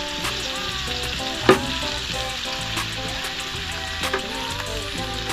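Sliced onions, tomatoes and chili peppers sizzling steadily in a steel wok, with one sharp click about a second and a half in and a couple of lighter clicks near the end.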